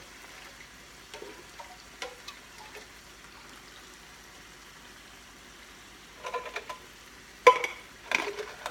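Hamburger-and-crushed-tomato sauce sizzling faintly in a pot on the stove, with a few light ticks of a utensil. Near the end, metal knocking and clanking against the pot, the loudest a sharp clank about seven and a half seconds in.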